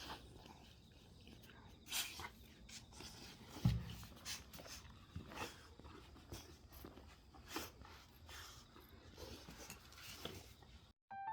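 Rottweiler chewing raw chicken carcass: irregular crunches and clicks of bone, with one heavier thump about a third of the way in. It cuts off suddenly near the end.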